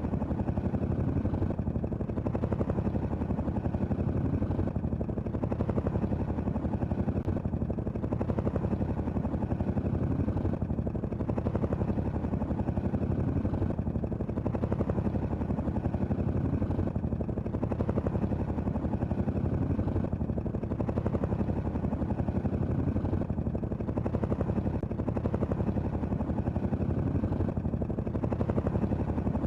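Helicopter running steadily, with a fast, even chop of the rotor blades.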